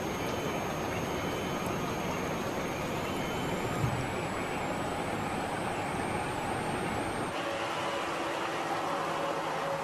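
Steady rushing of muddy floodwater running through a mudslide-covered street. About seven seconds in, the deep rumble under it drops away, leaving a lighter rush.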